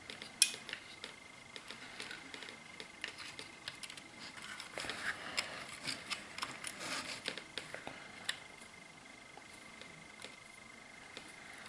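Faint clicks and rustles of hands handling a model railway coach body and its LED lighting circuit board, with fine stranded wires being pulled through. A sharp click comes about half a second in, and the clicks get busier around the middle. A faint steady high tone sits underneath.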